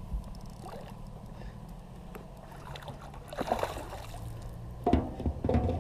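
Hooked smallmouth bass splashing and thrashing at the water's surface as it is fought in on a rod, with a splash about three and a half seconds in and a louder run of splashes near the end, over a steady low hum.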